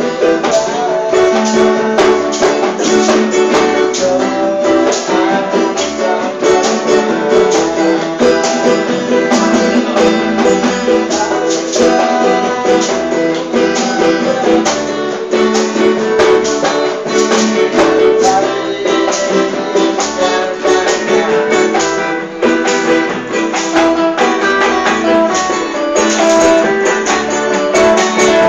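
Acoustic band playing an instrumental passage on strummed ukulele and guitar, with a steady, even strum.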